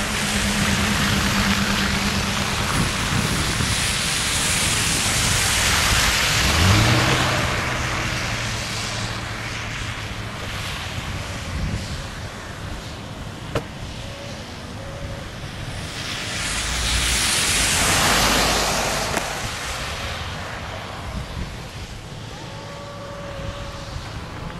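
Vehicles passing on a road, a rushing noise that swells and fades twice, loudest about six seconds in and again about eighteen seconds in.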